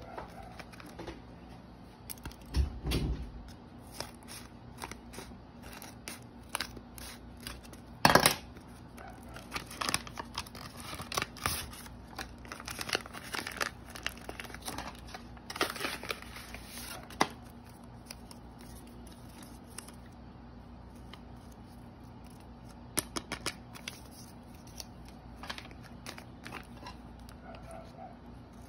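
Paper rustling, crinkling and small clicks as a handmade paper blind bag is handled, with scissors snipping into the paper near the end. A loud thump about eight seconds in.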